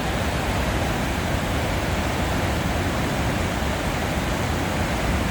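Water pouring steadily over a dam spillway, a constant rushing roar of falling water.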